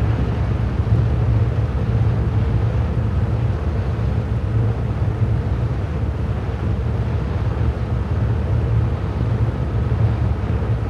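Wind and sea on the flight deck of a World War II aircraft carrier, from an old 78 rpm disc recording. A steady rush of wind over the sea, heaviest in the low end, with a faint steady hum underneath.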